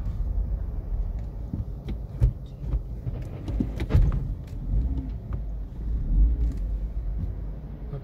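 Car cabin noise while driving in slow town traffic: a steady low rumble of engine and tyres, with a couple of sharp knocks about two and four seconds in.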